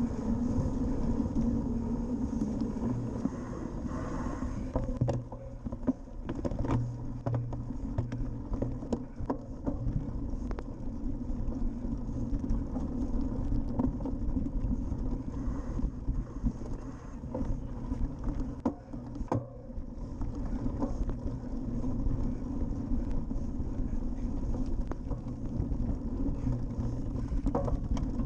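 Cyclocross bike ridden at about 20 km/h over sand and then grass: a steady low rumble of tyres and wind on the bike-mounted camera's microphone, with scattered clicks and knocks from the bike's frame and chain over bumps.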